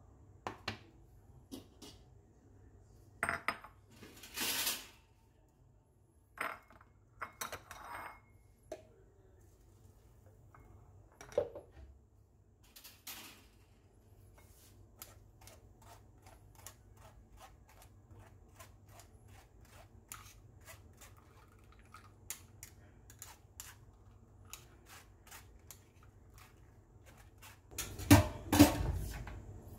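Kitchenware being handled on a countertop: scattered clinks and knocks of a metal mesh strainer, a bowl and a blender cup, with a run of small light ticks through the middle and a louder clatter near the end.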